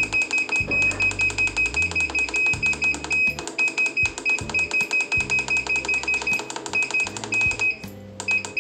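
Rapid electronic beeps from an automatic multiport water-softener valve controller as its button is held and the value steps up, about eight short beeps a second with a few brief breaks. Background music with a bass line plays underneath.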